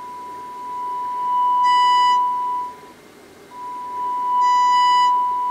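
Steady test tone from a Sony Air 7 airband receiver's small speaker, picked up from a signal generator. It rises in steps to full loudness and falls back, twice, breaking off for about half a second around three seconds in. The receiver is working again with its faulty original pot replaced by a 50k one.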